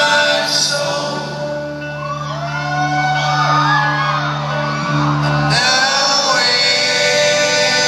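Live folk-rock band holding a sustained chord in a large reverberant hall, with many audience voices whooping and shouting over it in the middle; a low held note drops out about five and a half seconds in and the band comes back fuller.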